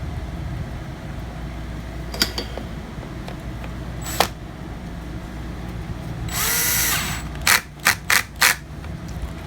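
Small electric screwdriver driving screws into a laptop's case: one whirring run of about a second, then four short quick bursts as the screws are snugged down. Two light clicks come before it.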